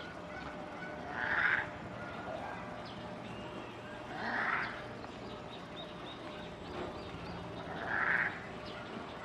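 An old macaque calling out three times in short, harsh shouts, each about half a second long and a few seconds apart.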